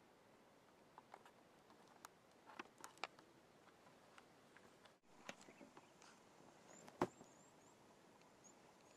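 Near silence with scattered faint clicks and taps, the sharpest a single knock about seven seconds in. Near the end, a faint series of short, high, rising chirps repeats.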